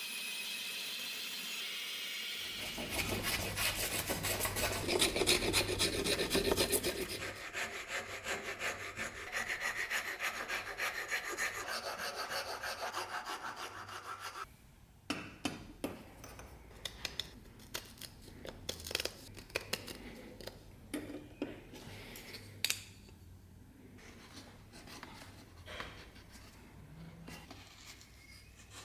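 Hand-tool workshop work: a steady hiss at first, then about twelve seconds of rapid back-and-forth scraping strokes, then scattered light knocks and clicks.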